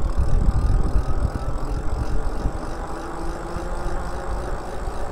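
Wind rumbling and buffeting on the microphone as the e-bike moves along at speed, with a faint electric motor whine rising a little in pitch underneath.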